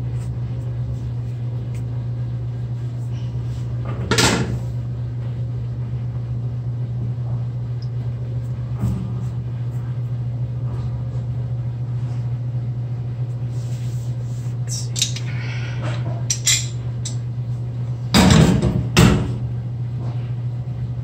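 Steady low hum, with a few sharp metal knocks and clanks of hand tools against the drain pipes and stainless sink. The loudest are two clattering clanks near the end.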